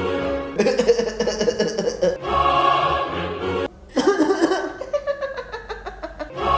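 A short choir-like music sting plays, the same sustained chord repeated twice. Between the stings come a person's pitched vocal sounds, broken into quick pulses, the second run sliding down in pitch.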